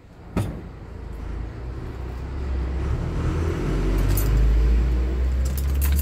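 Low engine rumble of a passing motor vehicle that builds over a few seconds, with a sharp click about half a second in and small clinks near the end.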